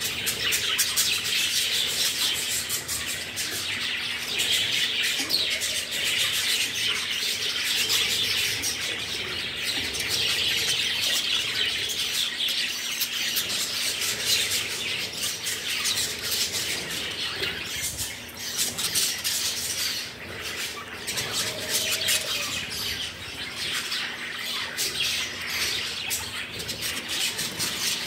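A flock of budgerigars chattering continuously: a dense mass of warbling, chirps and squawks with no break.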